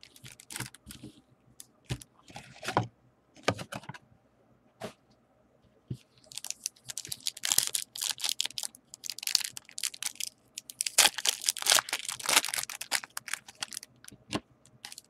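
Foil baseball-card pack wrappers crinkling and tearing as packs are ripped open, in two long stretches from about six seconds in. Before that, scattered light clicks and rustles of handling.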